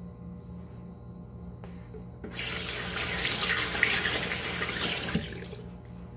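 Water running from a tap into a sink for about three seconds, starting a couple of seconds in and stopping near the end, over a steady low hum.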